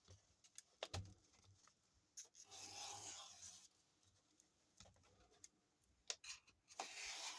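Faint scraping and rustling of sandpaper being worked against a wooden paint stir stick, in two short spells, with a few light taps and clicks in between.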